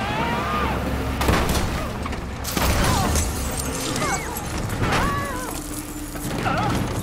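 Car-chase sound from inside a car being pursued in the rain: a steady low engine and road rumble, heavy impacts about one and two and a half seconds in, and short high wails that rise and fall several times.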